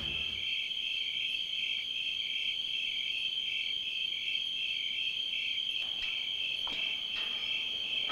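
Crickets chirping at night: a steady high trill with a pulsing chirp about three times a second. A few faint clicks come in the last couple of seconds.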